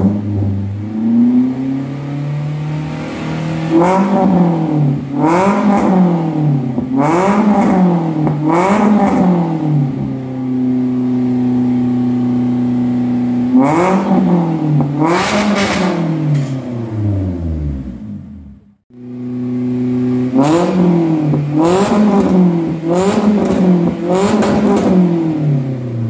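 Daihatsu Terios engine blipped through an aftermarket exhaust header and SVG resonator: repeated short revs that rise and fall, with a few seconds of steady idle between the groups of blips. About two-thirds through the sound falls away and cuts out briefly, then it idles and is revved in blips again.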